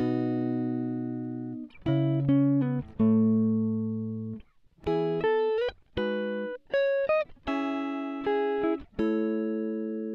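Background music: a guitar plays slow plucked chords and single notes, struck about once a second and each left to ring and fade.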